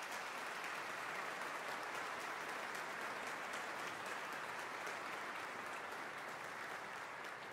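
Audience applauding steadily after the final chord of a choral and orchestral performance, beginning to fade near the end.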